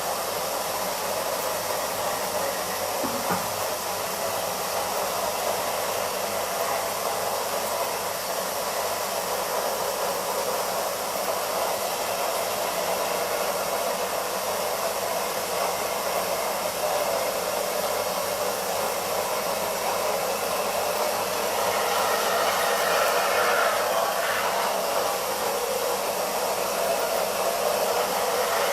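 Electric soybean milk grinder running steadily, its motor making a continuous whirring hiss as it grinds soybeans with water. It gets a little louder about three-quarters of the way through.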